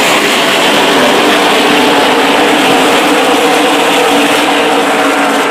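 A field of NASCAR Camping World Truck Series race trucks at full throttle taking the green flag, their V8 engines blending into one loud, steady roar of many engines at once.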